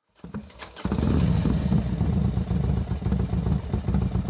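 Motorcycle engine running with a rapid, even exhaust beat, faint and uneven at first and then loud and steady from about a second in.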